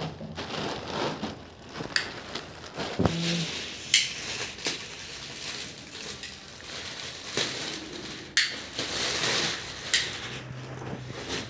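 Plastic packaging being handled: a plastic courier mailer and a clear polythene wrap crinkling and rustling as they are pulled open and off, with a few sharp crackles.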